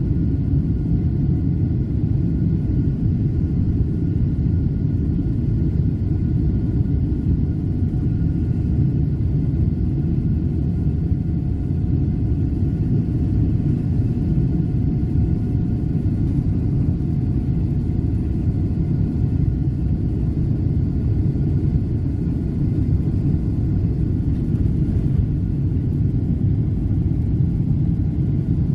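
Jet airliner cabin noise while taxiing: a steady low rumble with a faint, even engine whine above it.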